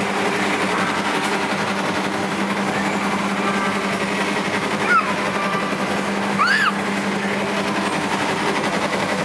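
Steady din of amusement arcade machines with a low hum, broken by two short rising-and-falling squeals about five and six and a half seconds in.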